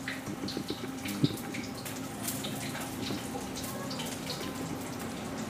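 Chop suey vegetables and broth simmering in a pan while a spatula stirs them, a steady bubbling with scattered clicks and scrapes of the spatula against the pan and one sharper knock about a second in.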